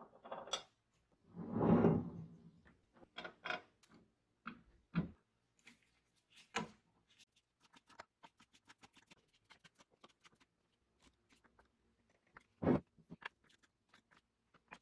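Screwdriver driving screws into the metal housing of a vintage 3M Scotch M-96 tape dispenser: a louder scrape about two seconds in, scattered metal clicks, then a long run of fast small ticks as the screws are turned, and a sharp knock near the end.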